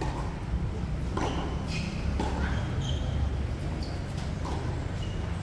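Tennis rally: a ball struck by rackets and bouncing on the court, heard as several sharp knocks, most of them close together in the first half, over a steady low rumble.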